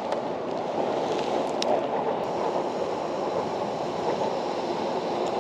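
Steady rushing noise of water around the kayak, with a few faint clicks.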